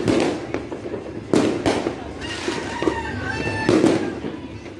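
Fireworks going off in a series of sharp bangs, some close together, with echo trailing between them.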